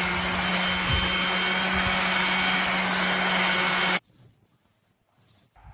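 Electric drill running at a steady speed for about four seconds, then cutting off suddenly, followed by faint handling knocks.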